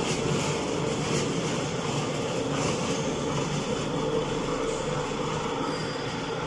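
Rebar straight thread rolling machine running steadily, its motor and gearbox turning the thread rolling head in reverse to back it off the freshly rolled thread.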